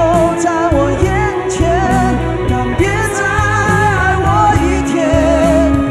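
A man singing a Mandarin pop ballad live into a handheld microphone over a full band backing, his voice wavering with vibrato. Near the end he holds one long low note.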